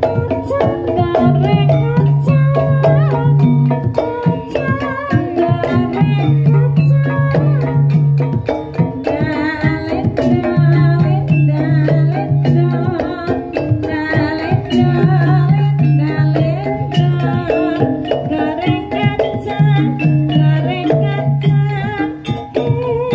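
Javanese gamelan-style music with tuned metal percussion and hand drums keeping a steady beat, under a deep note that recurs about every two seconds; a woman's voice sings with a wavering tone mainly through the middle.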